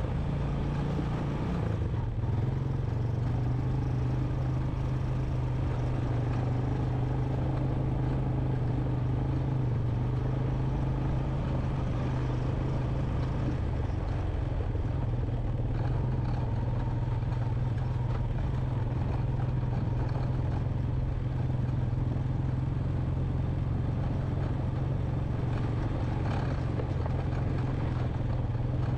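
A 2001 Honda Recon 250 ATV's single-cylinder four-stroke engine running steadily under way on a dirt trail, its engine note holding even throughout.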